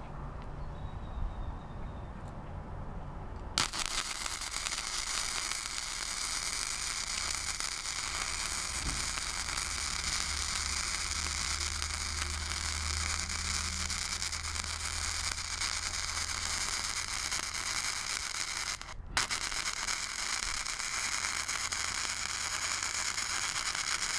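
Flux-core wire welding arc from a Blue Demon 140MSI welder laying a downhill pass: a steady crackling sizzle that starts about three and a half seconds in, breaks off for a moment about 19 seconds in, and starts again.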